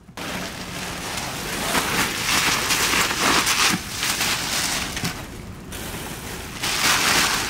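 Plastic sheeting crinkling and rustling as it is crammed by hand into a wooden pallet frame, in waves that swell and ease, loudest near the end.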